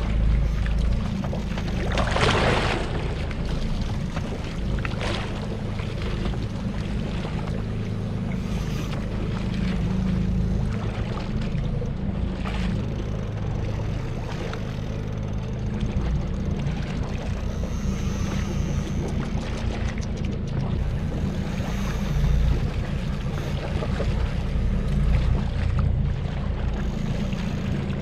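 Steady low rumble of wind buffeting the microphone aboard a small fishing boat at sea, with water noise, and a short burst of hiss about two seconds in.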